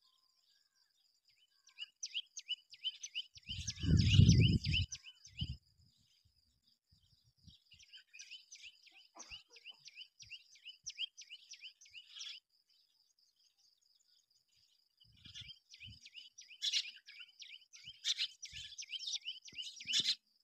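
Birds chirping in three bouts of fast, repeated high notes, over a steady high-pitched trill. A brief low rumble comes about four seconds in.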